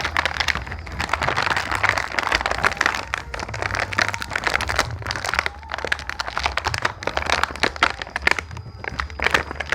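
Small plastic toy pieces being handled: a busy, irregular clatter of light plastic clicks mixed with crinkling.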